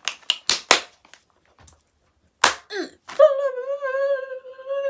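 A few sharp taps in quick succession, then a woman humming one long held note with a slightly wavering pitch.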